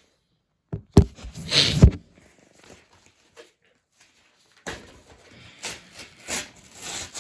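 A mailing package being handled and opened: a couple of sharp knocks about a second in, a short burst of paper noise, then steady rustling and crinkling of packaging in the second half.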